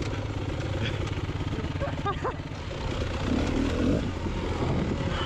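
Dirt bike engine running under way on a trail, a dense, fast low pulsing that eases off briefly about halfway through and then picks up again.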